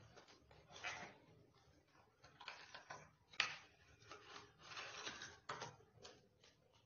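Steel ladle scraping and clinking against a steel pan as milk is stirred while it reduces: faint, irregular scrapes with a sharp clink about three and a half seconds in.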